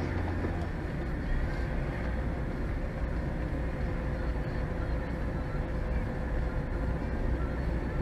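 Steady engine and tyre noise of a car driving on a snow-covered road, heard from inside the cabin.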